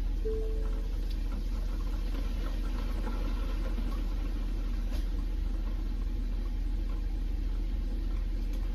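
Vehicle engine idling, heard from inside the cab as a steady low rumble.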